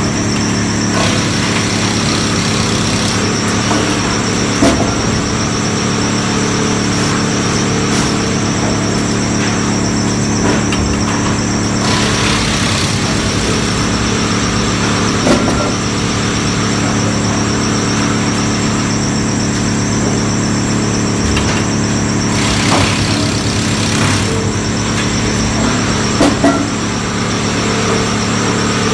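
Log canter milling machine running steadily, with a stacked motor hum and a high whine, stretches of denser hissing noise and a few brief knocks.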